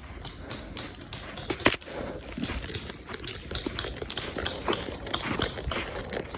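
Footsteps crunching irregularly over woodland leaf litter and twigs, with one sharp snap about two seconds in.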